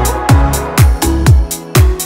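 Electronic house-style background music with a steady kick drum about two beats a second, cymbal hits and short synth notes over it.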